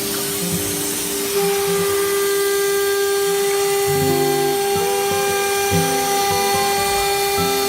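CNC router spindle motor running at high speed: a steady, high-pitched whine that grows louder about a second and a half in. Background music with changing notes plays underneath.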